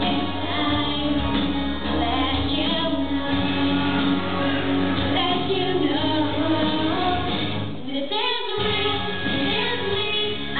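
Young women singing into microphones over an instrumental accompaniment with sustained bass notes, amplified through a PA in a hall. The accompaniment briefly drops out about eight seconds in.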